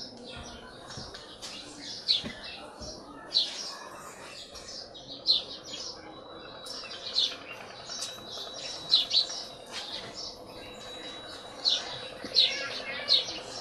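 Small birds chirping: short, sharp, high chirps at irregular intervals, about one every second or two, over a low steady background hum.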